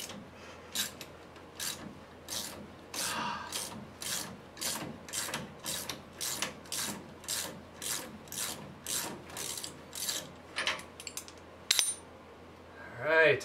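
Hand ratchet wrench clicking in a steady rhythm of about two strokes a second, working a nut off the lower mount of an old shock absorber. The clicking stops and a single sharp click follows near the end.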